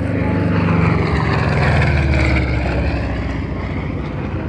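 P-47 Thunderbolt's Pratt & Whitney R-2800 radial engine on a flyby pass. It grows louder, peaks about a second or two in, then eases off, its pitch dropping as the plane goes past.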